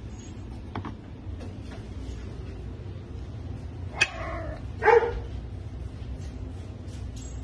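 Two short, sharp animal calls about a second apart, the second louder, over a low steady hum.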